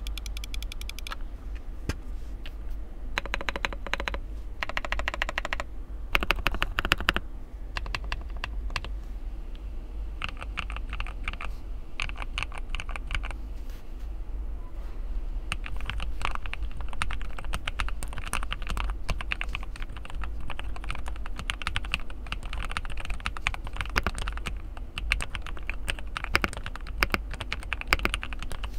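Typing on a Jingzao Q1 mechanical keyboard with Hourun Zhou switches: a steady stream of keystrokes. In the first several seconds there are a few short runs of rapid, evenly spaced clicks and a louder cluster of strokes.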